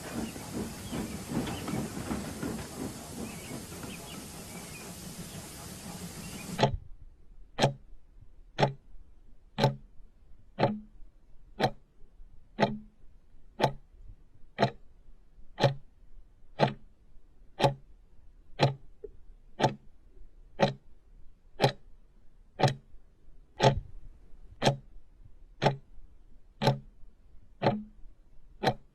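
Steam-train sound effects, with hissing steam and a running train, cut off suddenly about a quarter of the way in. A clock then ticks steadily about once a second.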